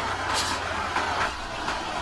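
A heavy earth-moving machine's diesel engine running under load, with several short metallic clanks.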